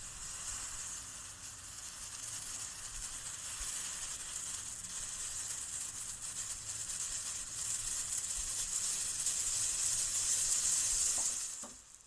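Coffee heating in a long-handled cezve (Turkish coffee pot), giving a steady sizzling hiss that grows gradually louder, then cuts off sharply near the end.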